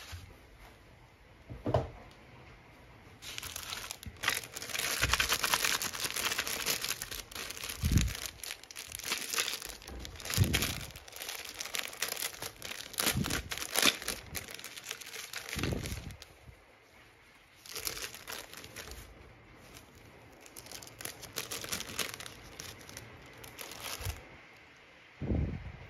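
Clear plastic packaging crinkling and tearing in bursts as it is pulled open by hand, with a few thumps as items are handled.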